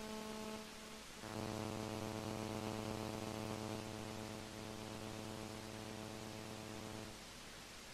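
Faint, steady electrical hum and buzz in the recording. It turns into a stronger, lower buzz about a second in and drops away about seven seconds in, leaving a soft hiss.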